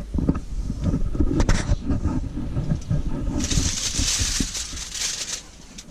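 Low rubbing and knocks of handling, then about three and a half seconds in a burst of crackling as kitchen tin foil is pulled from the roll and crumpled, lasting about two seconds.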